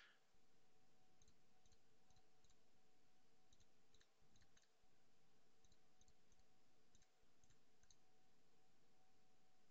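Near silence: faint computer mouse clicks come in small groups of two to four, about fourteen in all, over a faint steady electrical hum.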